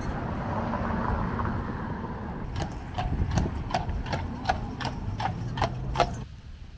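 A horse's hooves clip-clopping on pavement: a quick, even run of hoof strikes, several a second, starting a couple of seconds in over a steady background rumble and cutting off suddenly near the end.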